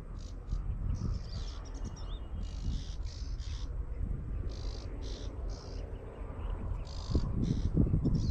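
Birds calling outdoors in short, repeated high chirps, over a low rumble that swells near the end.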